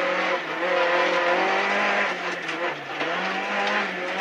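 Rally car engine at speed, heard from inside the cabin, over the noise of the tyres on the road. The engine pitch holds fairly steady, dips briefly about three seconds in, then climbs again.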